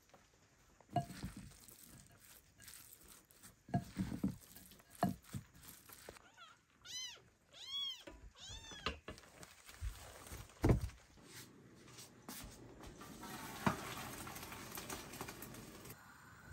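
Kitchen knocks and clatters from a spoon in a ceramic bowl and a metal pot and lid being handled, with a cat meowing about five times in quick succession around the middle. A steady hiss runs through the last few seconds.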